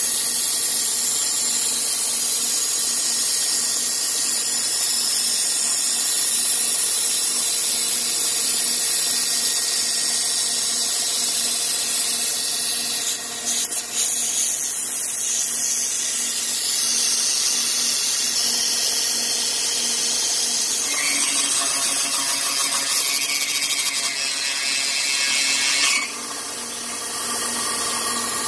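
A power tool running steadily as it mills, with a high hiss and a steady whine. About three-quarters of the way through the sound grows louder and rougher for several seconds, as the cutter bites harder, then eases back.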